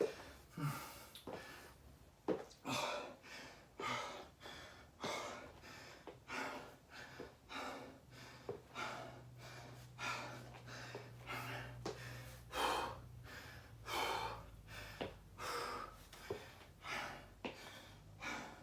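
A man breathing hard and fast in quick gasps, out of breath after a set of burpees.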